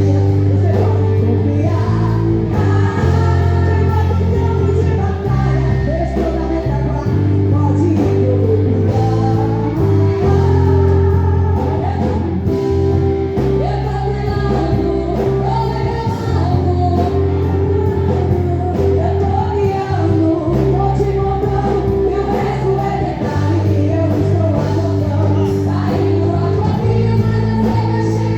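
Live gospel praise music: singing over a band with bass, guitar and a steady drum beat, in a large hall.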